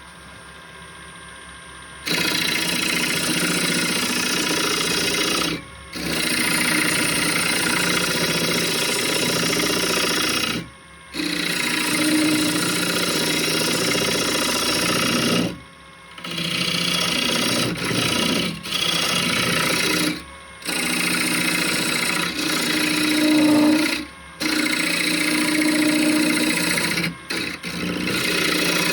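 Wood lathe running while the spinning wooden workpiece is worked, a rough scraping hiss with a faint motor hum under it. It starts about two seconds in and comes in several stretches, each cut off abruptly by a brief gap.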